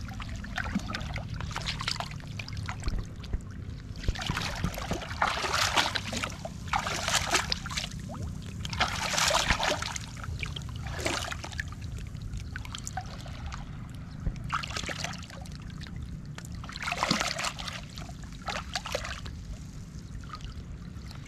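Hands digging and scooping in shallow seawater at a mantis shrimp burrow: irregular bursts of splashing and sloshing water.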